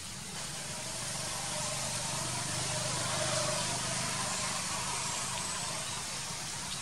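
Steady outdoor background hiss with a low hum underneath and faint voices in the distance.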